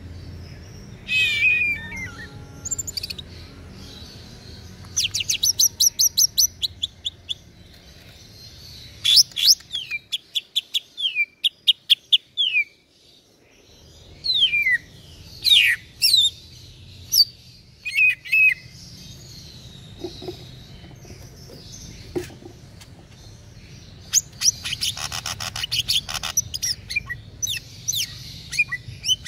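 Caged male green leafbird (cucak ijo) singing a loud, varied song of sharp whistles, falling slurred notes and fast chattering trills, with a short lull about halfway through.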